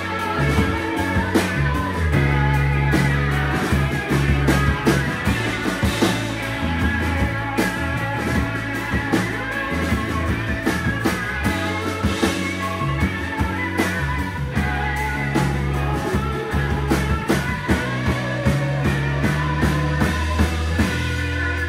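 Live rock band playing: electric guitars over a held bass line and steady drum-kit beats.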